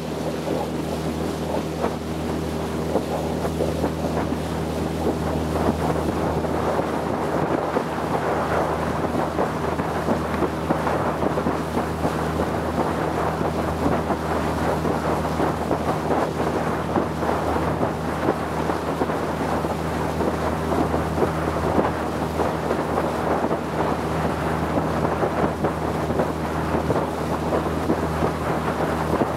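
Motorboat engine running at a steady drone while the boat cruises, with a rush of water and wind over it that grows a little louder about six seconds in.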